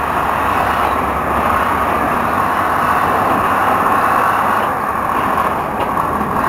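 Freight flatcars rolling slowly past on the track: a steady noise of steel wheels running on rail, with a continuous higher tone running through it.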